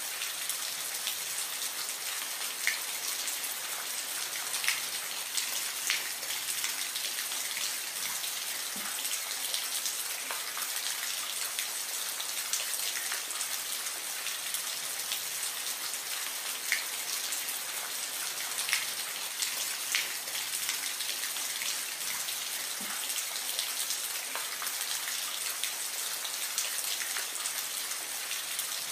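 Gentle rain falling steadily: an even hiss with scattered louder drop hits.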